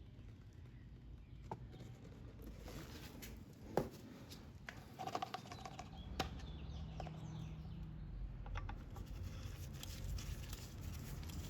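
Quiet, scattered clicks and taps from handling an oil bottle while a little more engine oil is added to an ATV, over a low steady hum that comes up about halfway through.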